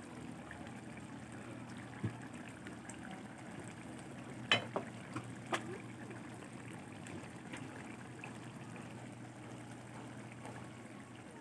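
Coconut-milk sauce with eel pieces simmering gently in a wok over very low heat, a soft steady bubbling as the sauce reduces and thickens, with a few sharp pops about four and a half to five and a half seconds in.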